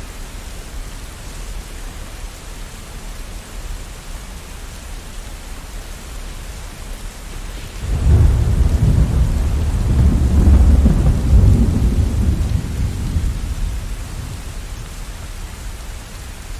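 Steady rain with a long peal of thunder that breaks in suddenly about halfway through, rumbles deep for several seconds and fades away before the end.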